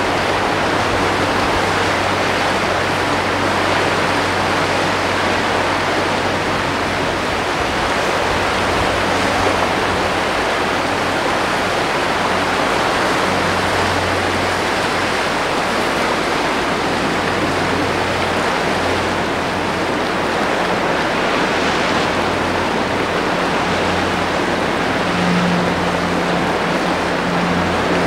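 Steady, even rushing of sea wind and surf on a rocky coast, with a faint low hum underneath.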